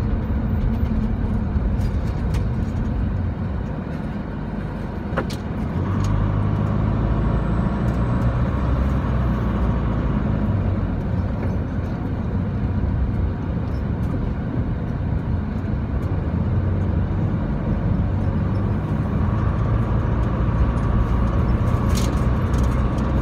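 Car engine and road noise heard from inside the cabin while driving, a steady low rumble that eases off briefly a few seconds in, then grows louder as the car picks up speed again. A single click is heard about five seconds in.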